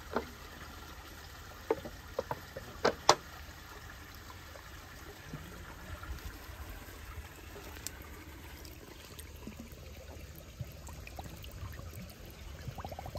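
Spring water trickling steadily, with a few sharp clicks and knocks about two to three seconds in.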